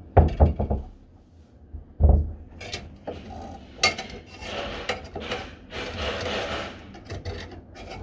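A few heavy knocks in the first second and another about two seconds in, then a cordless drill grinding into the door frame in uneven spurts for several seconds.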